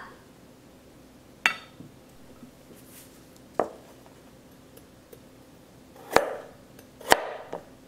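Chef's knife slicing through a raw carrot onto a plastic cutting board: a few separate chops, the loudest two near the end about a second apart.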